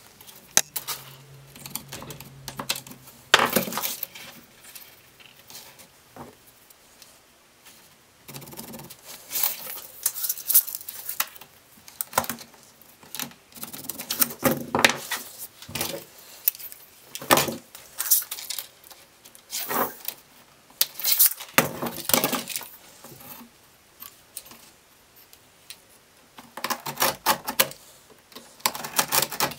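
Handling sounds of marking out and cutting sandpaper: a metal tape measure and rule clicking and sliding, a pencil scratching a line, and near the end a utility knife scoring through the abrasive sheet along the rule. Irregular bursts of scraping and clicks with quiet gaps between.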